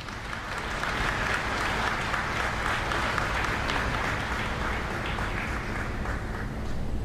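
A large audience of seated members of parliament applauding. The clapping swells within the first second and then tapers off toward the end.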